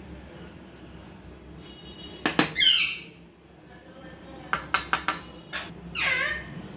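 A glass bowl clinking against a steel mixing bowl, several quick taps about halfway through as flour is knocked out onto the potatoes. Two brief high, wavering squeals stand out, one just before the taps and one near the end.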